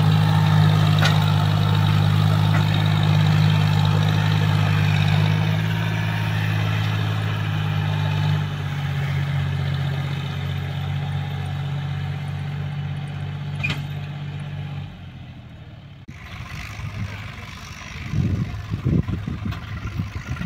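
John Deere 5045D tractor's diesel engine running steadily while pulling a trolley loaded with sand through loose sand. Its note drops slightly about eight seconds in and fades away after about fifteen seconds. Near the end it gives way to quieter, uneven sound with irregular bursts.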